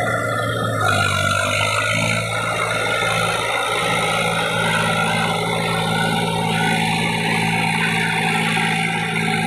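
Eicher 480 tractor's diesel engine running steadily as the tractor drives through a muddy paddy field, with background music over it.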